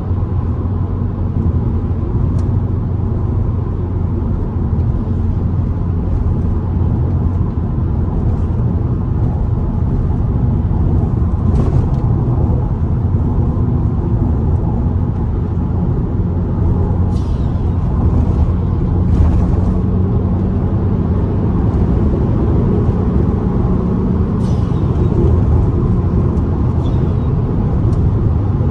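Car cruising on a highway: a steady engine drone with tyre and road noise. A few short hisses come through, the clearest about 17 and 19 seconds in.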